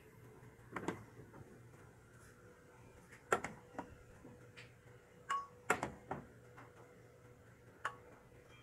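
Light clicks and knocks of a utensil against a metal saucepan and a plastic bowl as boiled green plantain pieces are lifted out of the pot and dropped into the bowl, about seven scattered strikes, over a faint steady hum.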